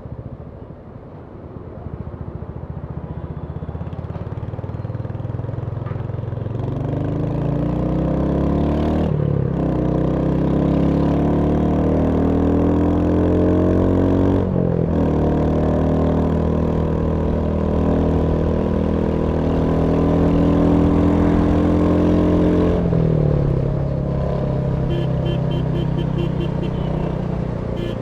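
Royal Enfield Hunter 350's single-cylinder engine pulling away and accelerating, its note rising and dropping back twice as it shifts up through the gears, then holding at cruise before falling as the throttle is rolled off near the end.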